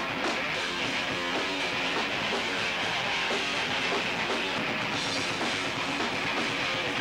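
Rock band playing live at a steady loud level: electric guitar and drum kit, heard through a camcorder's built-in microphone.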